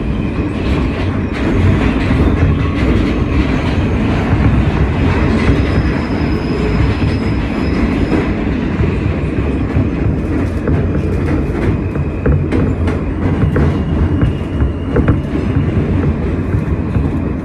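Kawasaki R160B subway train running through a tunnel, a steady rumble with the clickety-clack of its wheels over the rails. A faint high wheel squeal rises about a third of the way through and fades after a few seconds.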